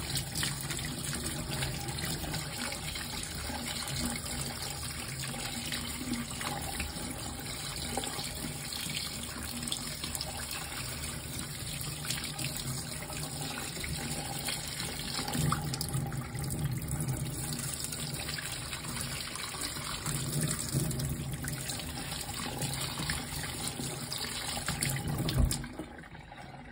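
Kitchen tap running into a stainless steel sink, the stream splashing over a crab held and rubbed under it. The flow stops near the end, with a brief knock.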